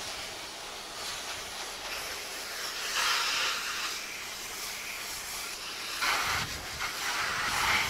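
High-pressure spray from a self-service car wash wand hissing in bursts: one short burst about three seconds in, and a longer one from about six seconds, over a steady background hiss.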